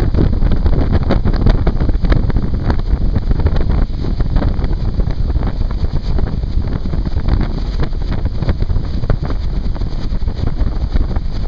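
Wind buffeting the microphone of a motorboat under way, over the steady rush of its wake.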